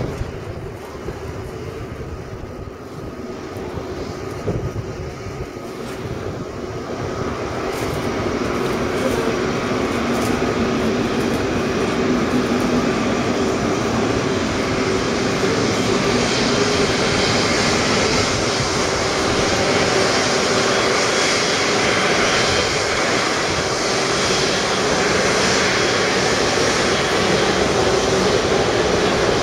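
Boeing 777 twin jet engines running at taxi power as the airliner taxis toward the listener. A steady engine hum grows louder over the first dozen seconds, then holds, with a high hissing rush building in the second half.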